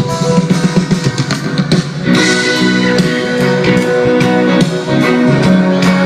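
Live band playing an instrumental passage without vocals: guitars over a steady drum beat.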